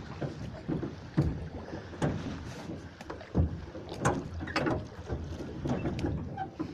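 Water lapping and splashing against the side of a small boat on a river, with irregular sharp knocks about once a second.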